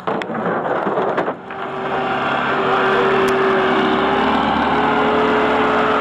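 Bomag pneumatic-tyred roller's diesel engine running steadily as the machine drives over the graded road base, with its note stepping up slightly about four and a half seconds in. A few sharp knocks come in the first second and a half, before the engine sound builds.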